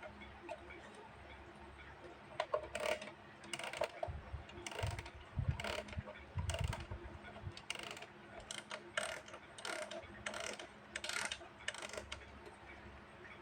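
Vintage mechanical wind-up alarm clock being wound by hand: irregular ratcheting clicks and knocks of the key mechanism, with a few dull handling bumps in the middle, after faint ticking at first.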